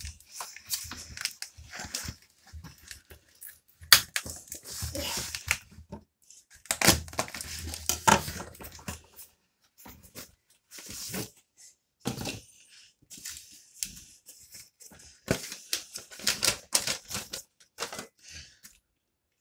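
A taped cardboard parcel being opened by hand: packing tape and cardboard tearing, with the box and its packaging rustling and knocking in irregular bursts.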